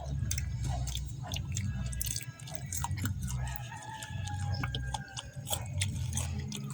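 Close-up chewing and biting of mango, with many short wet mouth clicks and smacks.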